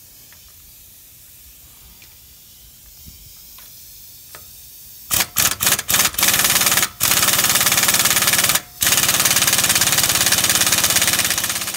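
Air impact wrench on a car's wheel lug nuts: a few short blips about five seconds in, then loud continuous rapid hammering with two brief pauses as the nuts are run off.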